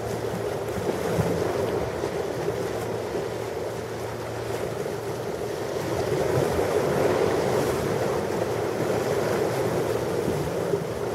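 Ocean waves washing in, a steady rush that swells to its fullest about two-thirds of the way through, with wind on the microphone. A faint low hum sits beneath it and fades out a little under halfway.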